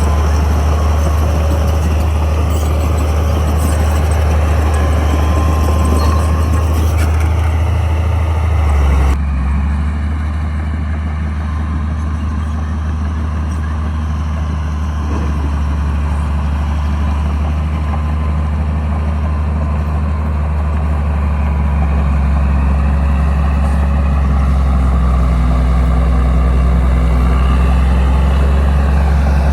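Bulldozer's diesel engine running steadily under load, a deep continuous drone. About nine seconds in the sound changes abruptly and the higher clatter drops away, leaving mostly the low engine drone.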